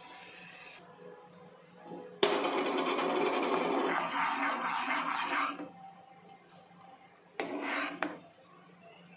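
Steel ladle stirring and scraping round a saucepan of bubbling syrup, in two spells. The first starts with a clack just after two seconds in and lasts about three seconds; a shorter one comes near the end.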